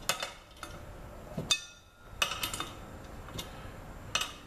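Irregular sharp metallic clicks and clinks from an open-end wrench being set on and turned against bolts threading into a drill press base. The loudest clink comes about a second and a half in.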